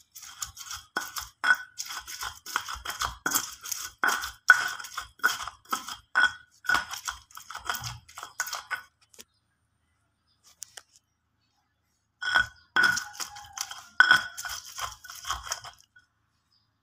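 Stone pestle grinding and knocking fried chillies, shallots and tomato against a stone mortar (cobek and ulekan) to make sambal: quick, gritty scrapes and knocks of stone on stone, several a second. The grinding stops for about three seconds midway, then resumes.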